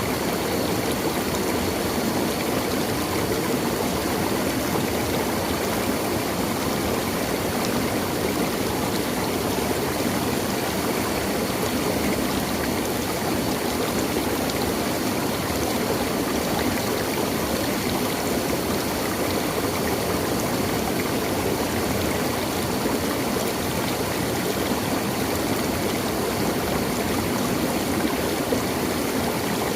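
Stream water flowing steadily, an even rushing noise that keeps on without a break.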